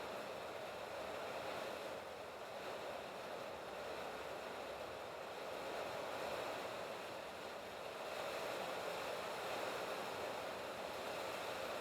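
Steady rain falling on a sheet-metal roof, a dense even patter with no single drops standing out. It grows a little louder about eight seconds in.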